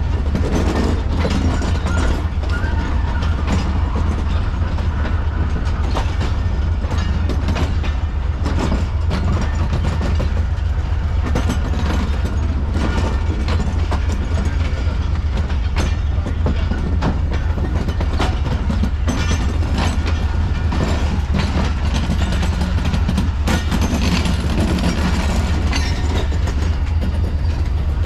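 Passenger train coaches rolling past at close range, the wheels clacking over rail joints over a steady low rumble.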